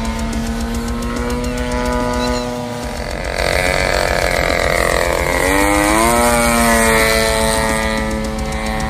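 The 50cc gasoline engine of a radio-controlled biplane in flight, running with a steady buzzing drone. It grows louder from about three seconds in, and its pitch climbs sharply about halfway through as the throttle is opened.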